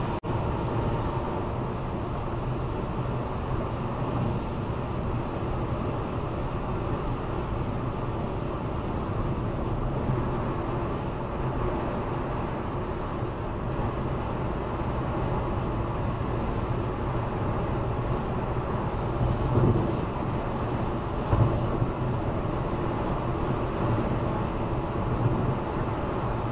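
Steady road and tyre noise heard inside a car cabin at highway speed, around 75–80 mph. Two brief thumps come about three-quarters of the way through.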